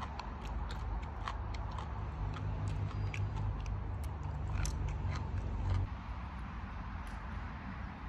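Scattered small sharp clicks and crackles over a low rumble; the rumble drops away suddenly about six seconds in.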